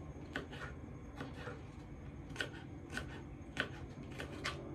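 Knife slicing cucumber on a plastic cutting board: light, irregular taps of the blade striking the board, about two a second.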